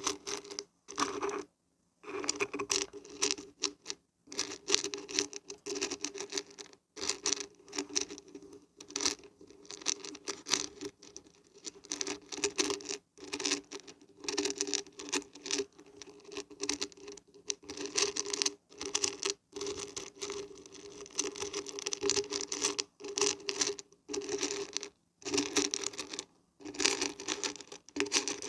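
Beans and barberries being shaken, a dense pattering rattle of many small grains that comes in repeated bursts with brief pauses between them.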